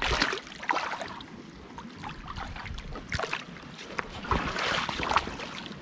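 Feet wading through shallow seawater over rocks, with an irregular splash and slosh at each step, roughly one a second.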